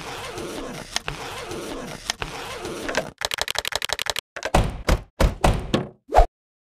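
Keyboard typing sound effect: a steady hiss broken by a few sharp clicks, then a quick even run of key clicks about ten a second, then a handful of heavier key thumps, the last the loudest, stopping abruptly.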